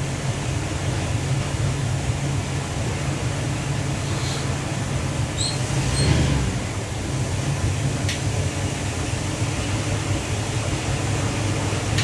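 Cabin cruiser's engine running steadily under way: a constant low drone under an even rushing hiss, with a few faint ticks.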